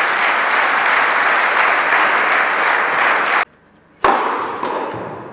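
Crowd in an indoor hall applauding, cut off abruptly a little over three seconds in; after a short gap, applause starts again and fades away.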